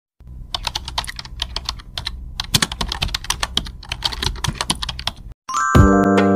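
Rapid, irregular keystroke clicks, a typing sound effect. Music with steady pitched notes starts about five and a half seconds in.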